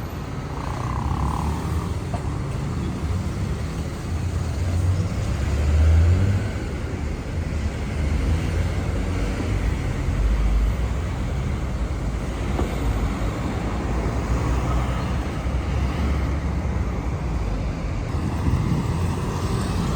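Steady city road traffic: cars and other vehicles passing on a busy avenue, a continuous low rumble of engines and tyres that swells for a moment about five to six seconds in.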